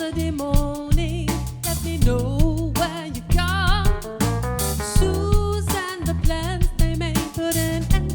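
A live band playing a soul-jazz groove: drum kit keeping a steady beat under bass and keyboards, with a melody line that wavers in pitch near the middle.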